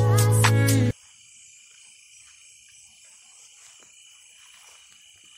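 Loud background music stops abruptly about a second in. It gives way to a faint, steady chorus of night insects such as crickets, shrilling high.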